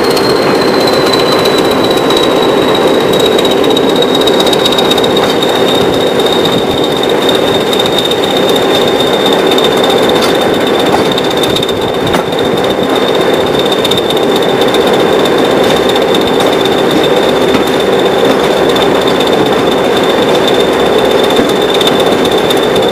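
Class 20 locomotive's English Electric eight-cylinder turbocharged diesel engine working hard under power, a loud steady clatter. A high turbocharger whistle sags slightly in pitch in the first couple of seconds and then holds steady.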